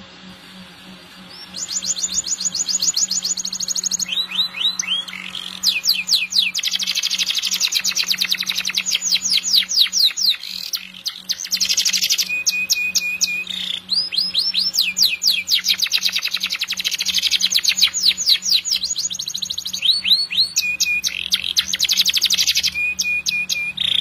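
Domestic canary singing a long, unbroken song that starts about a second and a half in: fast trills of rapidly repeated notes, switching from one roll to the next every second or two, with short held whistled notes between them. A faint steady hum runs underneath.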